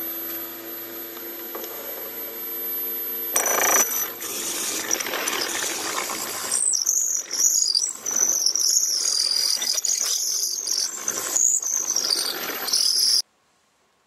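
Wood lathe motor running with a steady hum. About three seconds in it gives way to a clatter, then high, wavering metallic squeaks and handling noise as the drilled pen blank is worked free of the chuck. Everything cuts off suddenly near the end.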